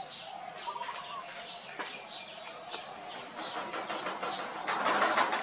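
A bird's short, high, falling chirps repeating about once or twice a second, with a rushing noise swelling near the end.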